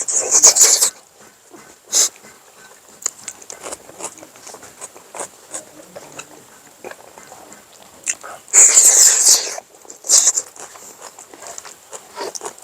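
A person eating noisily: a few loud slurping bursts, the longest lasting about a second near the end, with quieter chewing and mouth clicks between.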